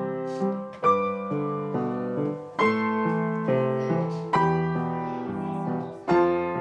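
Upright piano played four hands by two people at one keyboard: a slow run of chords, a fresh one struck every half second or so, each ringing on until the next.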